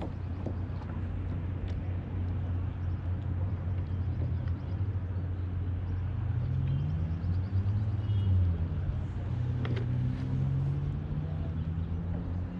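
A boat motor runs steadily with a low rumble. Its pitch rises and falls from about halfway through.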